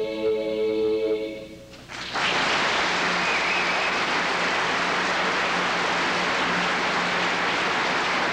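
A women's vocal group holds a final sustained chord that dies away about a second and a half in; about two seconds in, audience applause breaks out and continues steadily.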